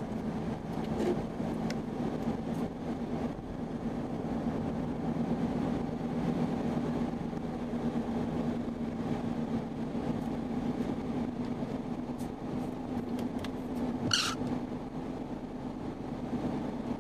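Car engine idling, heard from inside the cabin as a steady hum. A brief high-pitched sound cuts in about fourteen seconds in.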